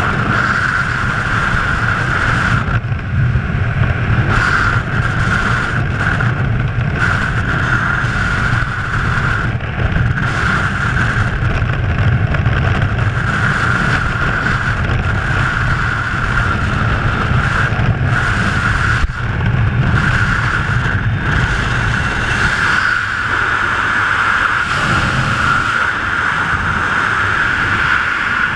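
Freefall wind rushing over the camera's microphone during a skydive: a loud, steady roar of air. The low part of the roar eases for a few seconds about 22 seconds in.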